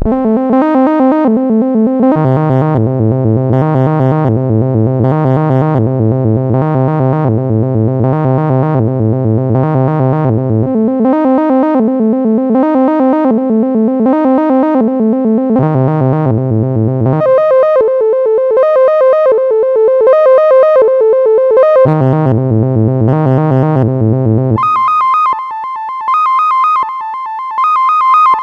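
Loud synthesized electronic tones, rich in overtones, throbbing in a steady repeating pattern, with a deep low tone that drops out and comes back. Near the end they jump to higher, thinner tones that switch on and off about once a second. The tones are meant to be played through a phone speaker to shake water out of it.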